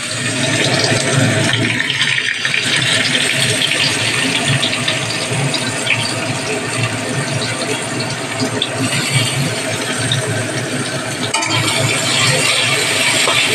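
Chopped onions sizzling steadily in hot oil in a metal wok, with a spatula stirring them through the pan near the end.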